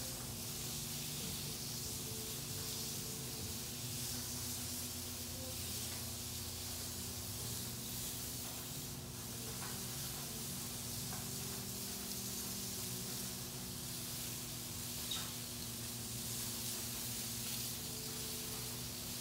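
Steady hiss, with faint low sustained tones coming and going beneath it.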